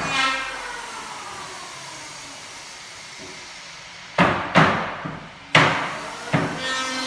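Sharp knocks and thumps on a solid-wood bed platform as a person climbs onto it and crawls across it on hands and knees: about five knocks over two seconds, starting about four seconds in.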